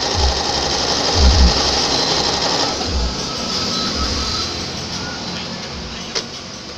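Brother domestic sewing machine running, stitching a zigzag seam; its steady running sound eases off after about three seconds. A single sharp click comes near the end.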